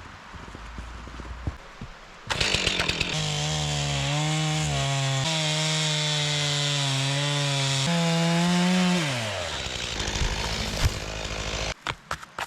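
Stihl two-stroke chainsaw revving up about two seconds in and running steady while cutting deadfall for firewood. Its pitch rises briefly, then falls away as it winds down.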